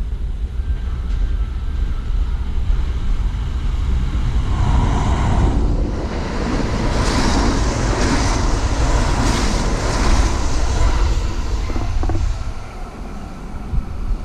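Kintetsu electric train passing through the station without stopping on the adjacent track: its noise builds from about four seconds in, is loudest in the middle with the wheels clattering on the rails, and dies away a couple of seconds before the end, over a steady low rumble.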